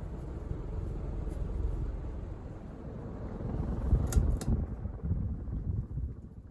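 Casablanca Lady Delta ceiling fan running on high, its moving air giving a steady low rumble. Two sharp clicks come about four seconds in, and the sound fades near the end.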